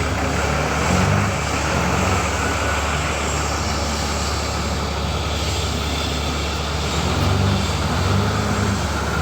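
A heavy engine running steadily, its low tone swelling now and then as it comes under more load.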